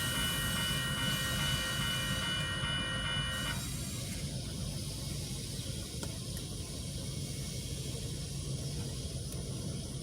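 Railroad grade-crossing electronic bells ringing steady high tones that cut off suddenly about three and a half seconds in, as the crossing signal shuts off after the train. A steady low rumble of the passing train runs underneath.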